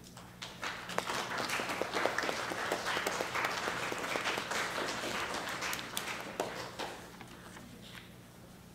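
Audience applauding, many hands clapping; it starts about half a second in and dies away after about seven seconds.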